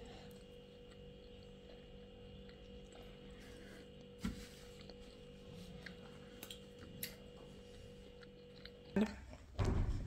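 A child chewing and biting into a burger, faint, over a steady hum. There is a short knock about four seconds in, and the hum cuts off near the end as louder knocks and a low bump come in.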